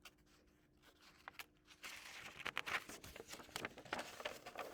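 Paper rustling and light taps, starting about two seconds in, as the pages of a picture book are handled and turned.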